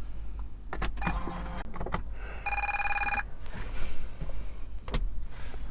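Car's dashboard warning chime sounding once, a steady electronic tone of under a second, as the ignition is switched on with the battery jump-started. A few clicks come before it and a sharp click near the end.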